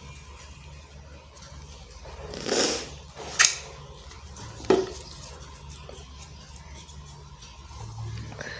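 Block of gym chalk being crushed: a crumbling crunch about two and a half seconds in, then two sharp cracks about a second and a half apart.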